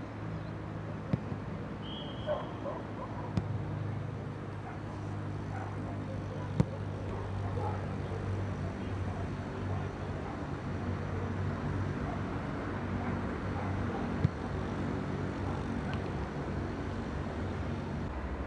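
Steady low engine-like hum in the background, with a few sharp thuds of a football being kicked and caught in a goalkeeper crossing drill. The loudest thud comes about six and a half seconds in and another about fourteen seconds in.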